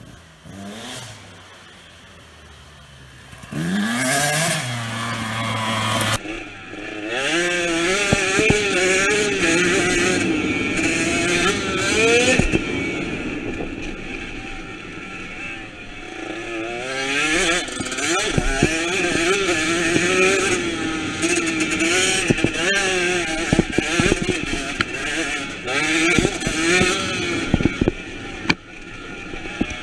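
2019 KTM SX 125 single-cylinder two-stroke motocross bike: fairly quiet at first, then about three and a half seconds in the engine rises sharply in pitch and runs loud, revving up and down as the bike rides a dirt trail, with occasional knocks.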